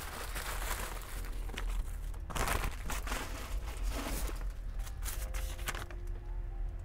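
Plastic mailer bag and tissue paper crinkling and rustling as a clothing parcel is pulled open and unwrapped by hand. The rustles come in repeated bursts and die down about six seconds in.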